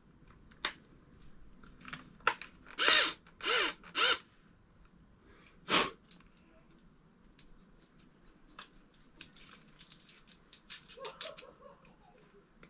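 A power drill given short trigger bursts: three quick spins about three to four seconds in, each rising and falling in pitch, and one more a couple of seconds later, among scattered light clicks and taps of handling.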